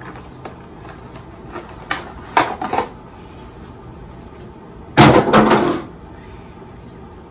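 Plastic packaging tray of a hair trimmer being handled: scattered light clicks and knocks, then a louder rattle and clatter of plastic lasting about a second, about five seconds in.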